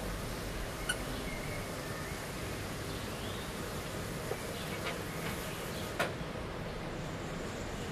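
A small dog chewing a squeaky rubber toy, which gives a few faint squeaks in the first half, with a sharp click about a second in and another near six seconds. Under it runs a steady hiss of heavy rain.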